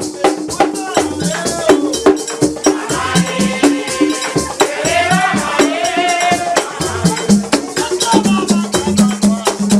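Upbeat music with a fast, steady shaker rhythm over a pulsing bass line, with a gliding melodic line in the middle.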